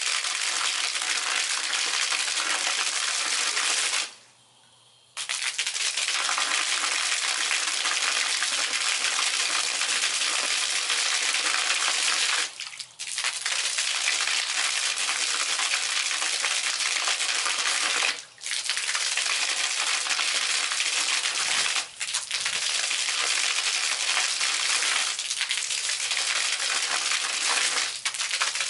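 Water from a submersible arching fountain jet spraying and splashing down, a steady spattering hiss. It cuts out for about a second a few seconds in and dips briefly three more times later.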